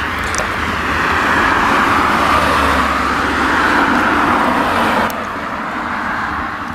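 Farm tractor pulling a loaded hay-bale trailer past, a steady engine and rolling noise that swells as it passes and drops suddenly about five seconds in.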